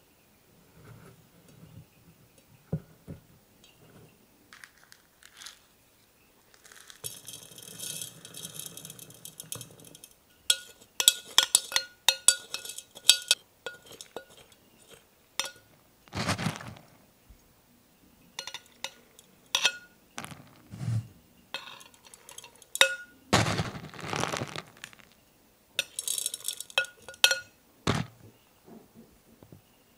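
A metal spoon clinking against a glass jar as granular substrate is spooned in around cork bark, with the pellets rattling against the glass. There are many short clinks, several of which leave the glass ringing briefly, and a few longer stretches of rattling pour.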